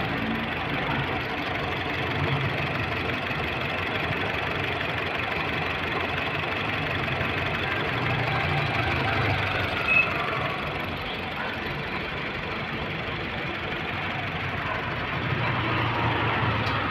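Honda City's i-VTEC four-cylinder petrol engine idling steadily with the hood open, under a steady rushing noise. A single short sharp click sounds about ten seconds in.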